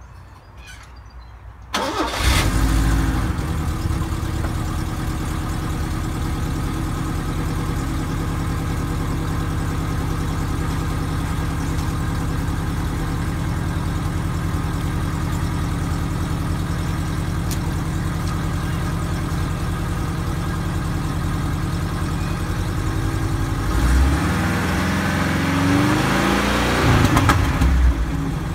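Subaru L-Series wagon's flat-four engine starting about two seconds in, then idling steadily through its home-repaired exhaust, the muffler cut open and its baffle drilled with extra holes. Near the end it is revved up briefly three times.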